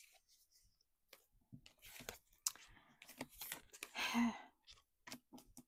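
Oracle cards being handled and laid out on a table: scattered short clicks and papery slides and rustles, with a brief soft voice sound about four seconds in.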